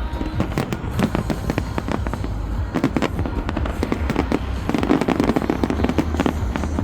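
Fireworks going off in rapid, irregular succession: many sharp bangs and crackles close together over a low rumble, with music playing underneath.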